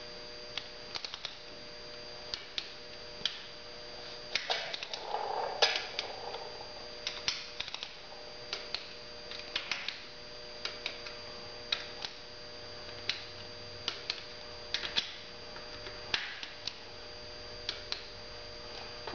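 Torque wrench ratcheting as it tightens the camshaft bearing cap nuts to 20 foot-pounds: irregular sharp clicks, some single, some in short runs. A steady electrical hum runs underneath.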